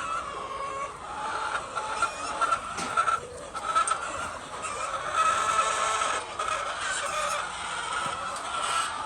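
A flock of laying hens clucking and calling, many birds overlapping into a steady chatter.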